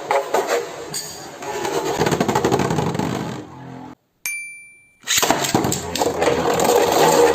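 Spinning battle tops grinding and clattering against each other and the stadium floor, with rapid clicking contacts. About four seconds in it cuts to silence with one short ringing ding, and the scraping and rattling starts again loudly about a second later.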